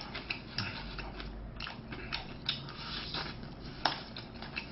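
Close-up eating sounds: chewing and mouth noises, with irregular clicks of chopsticks on a plastic lunchbox tray and one sharper click near the end.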